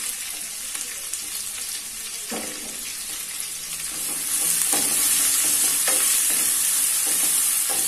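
Chopped onions sizzling in hot oil in a stainless steel frypan, freshly added and being stirred with a wooden spatula that knocks against the pan a few times. The sizzle grows louder about halfway through.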